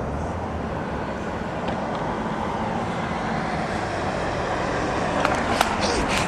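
Steady rumbling road-vehicle noise, growing slightly louder, with a few short clicks near the end.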